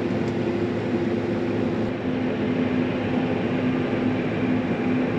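Diesel engine of harvest machinery running steadily, a constant drone with a low hum.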